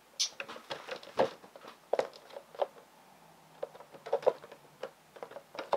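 Handling noise from a cardboard window box with a clear plastic front being turned over in the hands: irregular light taps, clicks and crinkles, a few louder knocks among them.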